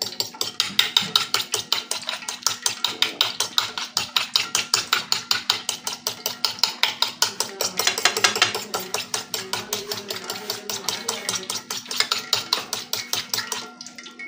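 Eggs being beaten by hand in a ceramic dish: the utensil clicks against the dish in a fast, even rhythm of about five to six strokes a second, stopping shortly before the end.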